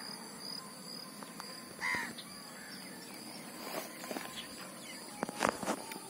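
Quiet lakeside ambience: a steady high insect drone, one short bird call, a crow-like caw, about two seconds in, and a few short splashes or knocks from the water near the end.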